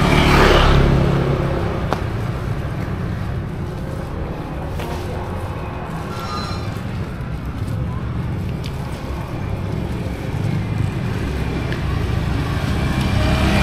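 Road traffic: vehicle engines and tyres making a steady low rumble, louder near the start and again near the end as vehicles pass close by.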